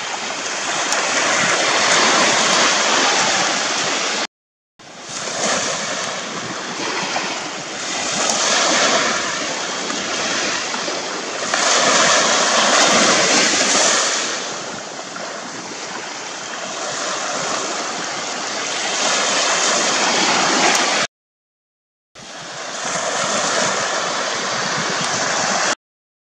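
Sea surf and wind picked up by a camera's microphone at the shore: a loud hiss that swells and eases every few seconds. It cuts out for a moment about four seconds in and again around twenty-one seconds, and stops just before the end.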